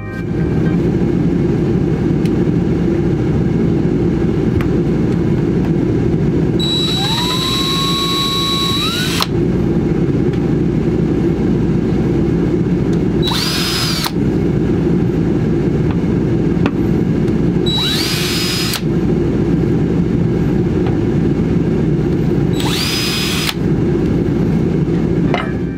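Cordless drill boring holes into wood paneling, run four times, each run a high whine that rises in pitch as the motor spins up, the first the longest, over a steady low rumble.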